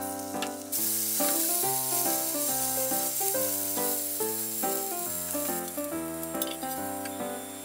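Stuffed fried-tofu pouches sizzling in a frying pan as added sake steam-fries them, the hiss strengthening about a second in. Background music with a melody of short notes plays throughout, and a few light clicks come near the end.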